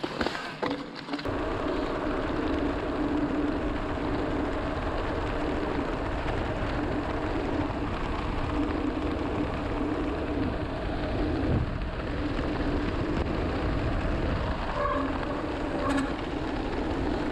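Mountain bike ridden along at a steady pace: a steady hum from the rolling bike with wind rumbling on the helmet camera's microphone, setting in about a second in.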